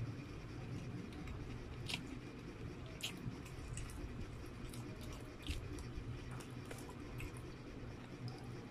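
Close-miked chewing of a mouthful of stir-fried noodles, with a few sharp wet mouth clicks scattered through it. A low steady hum runs underneath.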